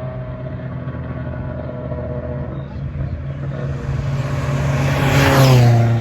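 A vintage racing car's engine running hard as the car passes close by. It grows louder to a peak about five seconds in, and its pitch drops as it goes past. Other engines run underneath throughout.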